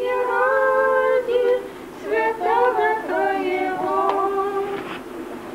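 Unaccompanied women's voices singing an Orthodox liturgical chant in long held notes that step from pitch to pitch.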